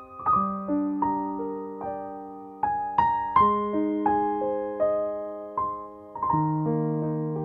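Slow, gentle piano music: single notes and chords struck about once or twice a second and left to ring out.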